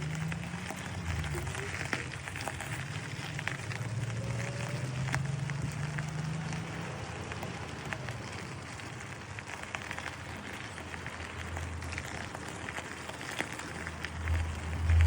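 Bicycle rolling along a paved path: a steady crackling of tyre noise with small clicks and a low wind rumble over the microphone.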